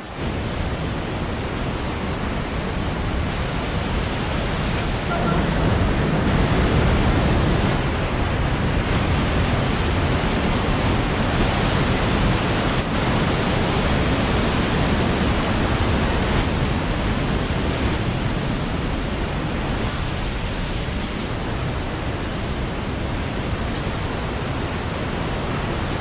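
Steady rushing noise of a waterfall's water pouring over rock, its tone shifting abruptly a few times.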